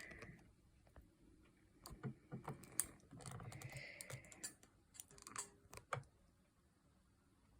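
Faint scattered clicks and taps of a watercolour brush against the palette and paper, with a soft brushing sound a little past three seconds in as paint goes onto watercolour paper.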